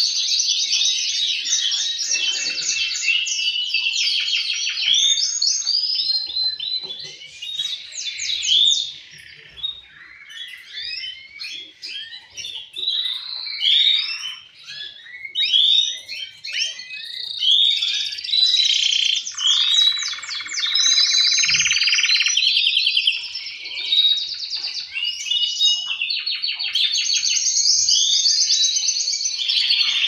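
Male canaries singing continuously in rapid trills and rolls. The song thins to a quieter, broken stretch about a third of the way in, and a lower buzzing roll comes about two-thirds of the way through.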